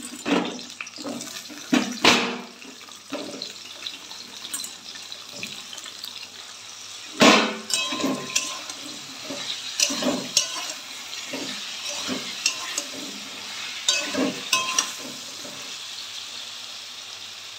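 Pointed gourd and potato chunks sizzling in hot oil in a wok, with a steady hiss. A spatula knocks and scrapes against the pan every second or so, loudest about seven seconds in.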